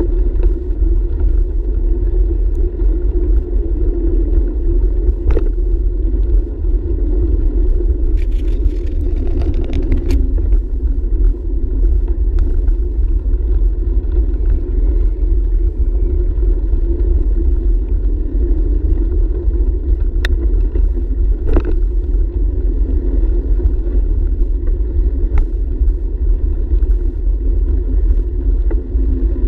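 Steady wind buffeting on the microphone and tyre rumble from a bicycle riding along a paved trail. A few short clicks and a brief rattle, about eight to ten seconds in, come from the bike going over bumps.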